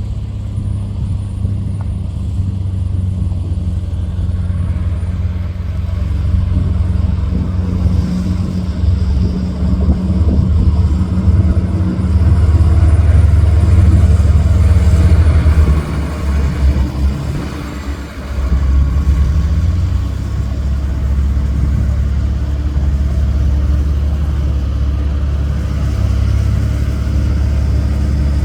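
Dump truck's heavy diesel engine running, its sound growing louder over the first half, dropping off briefly about two-thirds of the way through, then running steadily again.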